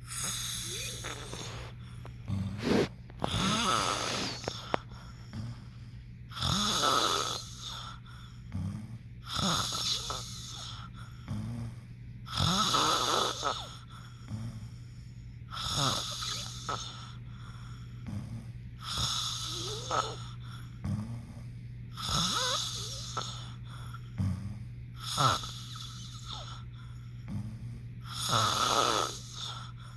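Snoring: slow, rhythmic breaths about every three seconds, each a rasping rush of air with a short low snore in it.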